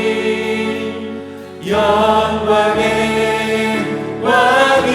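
Church choir singing a slow Korean praise song. A held note fades out about a second and a half in, then a new phrase begins.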